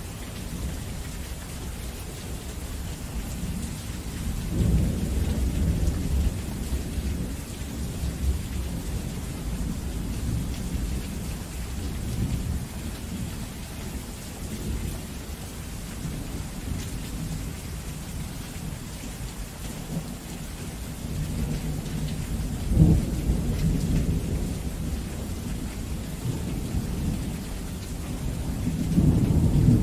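Heavy rain falling steadily, with rolling thunder: a low rumble swells about five seconds in, a sharper, louder clap comes about two-thirds of the way through, and another rumble builds near the end.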